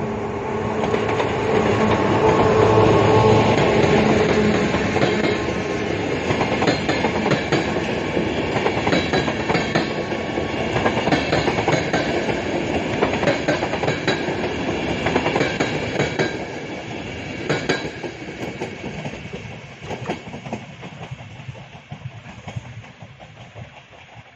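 Electric locomotive hauling a passenger train of Intercity coaches passing close by. It is loudest in the first few seconds as the locomotive goes past, then gives way to a long run of clickety-clack from the coach wheels on the rail joints, which fades away near the end as the train recedes.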